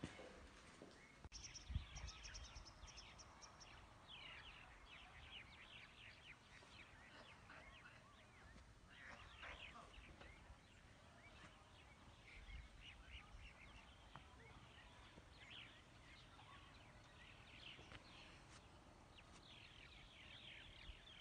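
Faint birds chirping, many short calls scattered throughout, with a quick run of high ticking notes about two seconds in. A single low thump comes just before it.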